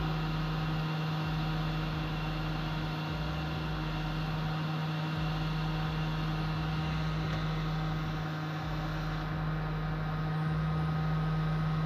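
Hot-air rework station blowing steadily with a constant hum while it heats surface-mount capacitors on a laptop motherboard to desolder them.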